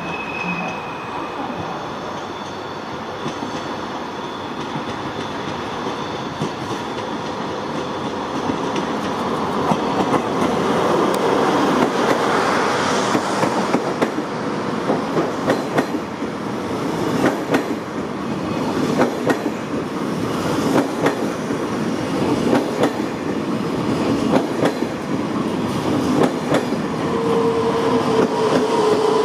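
Double-deck TGV high-speed train rolling past along the platform, its wheels clicking over the rails in a regular clickety-clack that grows louder as the cars go by. Near the end a squeal sets in, a steady tone that falls slightly in pitch.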